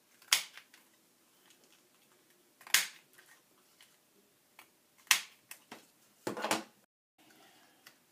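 Handheld corner rounder punch snapping through paper as corners are rounded: four sharp snaps about two and a half seconds apart, the last one longer and doubled.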